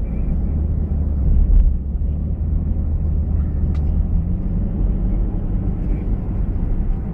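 Steady low rumble of a moving car's engine and tyres on the road, heard inside the cabin.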